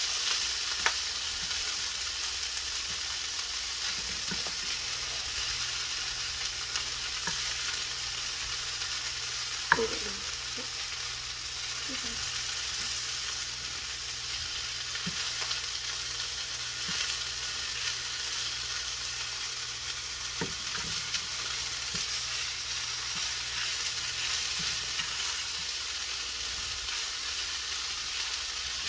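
Food sizzling steadily as it fries in hot oil in a pan, with a few brief clicks of a utensil against the pan, the sharpest about ten seconds in.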